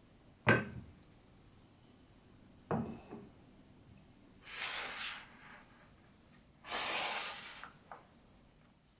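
Unfinished wooden marble-run blocks being set in place: a sharp wood-on-wood knock about half a second in, a second knock with a smaller one just after it near three seconds, then two longer scrapes of wood sliding on wood, the second louder, and a light click near the end.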